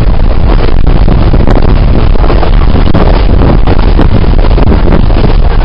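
Steady noise of a moving passenger train with wind buffeting the microphone, loud and heavy in the low end.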